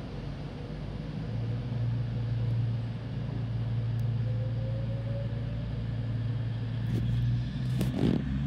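Avanti West Coast Class 390 Pendolino electric train pulling out of the platform, a steady low hum with a faint rising whine as it accelerates away. A few sharp knocks near the end.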